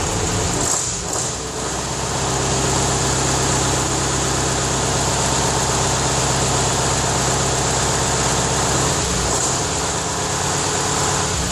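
Scania 141's V8 diesel engine running at idle, just brought back to life after a year and a half laid up. Its note shifts about a second in and again near nine seconds.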